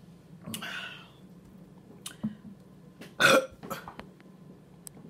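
A woman burps loudly about three seconds in, after a softer throat sound near the start.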